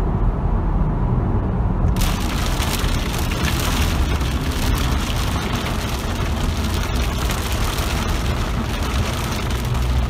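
A Lamborghini's engine running with a low drone, heard from inside the cabin. About two seconds in, as the car drives out of a tunnel into a downpour, heavy rain and road spray start hitting the windscreen and body with a loud, steady hiss.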